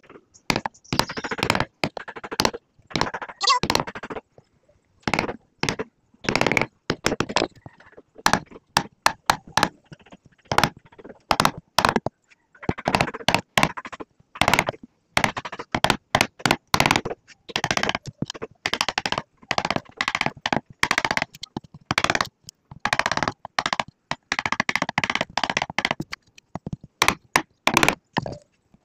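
Wood being cut away by hand with a chisel and hammer to deepen a drawer-lock recess: irregular sharp strikes and cracking of wood, in quick clusters.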